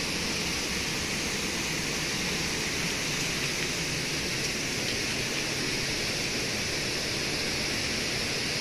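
Steady outdoor ambience beside a river: an even rushing noise with no distinct events.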